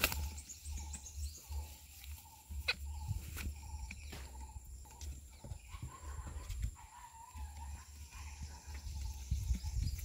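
A rose-ringed parakeet caught in a net flapping, and the net rustling and clicking as it is handled and cut free, over a steady low rumble.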